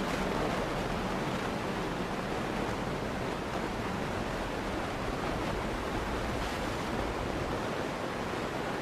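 Steady rushing road noise inside a moving car: tyres on a slushy road and the car's running, heard through the dash cam.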